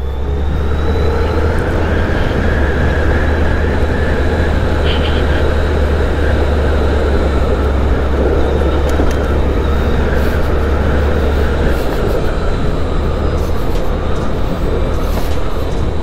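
Motorcycle running steadily while being ridden, with wind rumbling over the rider's microphone. The low rumble eases about twelve seconds in.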